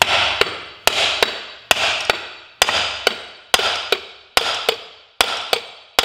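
Hammer blows on the end of the crankshaft of a Peugeot Speedfight 2's air-cooled two-stroke engine, driving the crankcase halves apart. A steady run of about fifteen strikes, a hard blow followed by a lighter one less than half a second later, the pair repeating a little faster than once a second, each ringing briefly.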